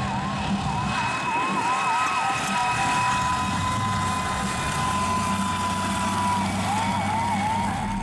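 Siren yelping in quick repeated rising sweeps, about four a second, then holding one steady tone for a few seconds before yelping again, over a steady noisy rush.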